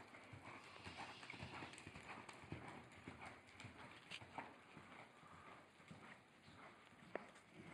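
Faint hoofbeats of a saddled horse loping on loose arena dirt: soft, uneven thuds, with one sharper click about seven seconds in.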